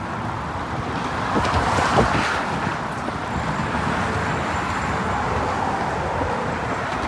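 Steady road-traffic noise of passing cars, with some wind on the microphone.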